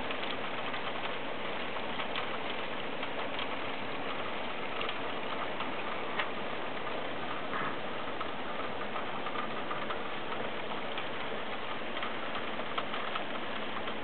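A steady hiss with faint, scattered light ticks.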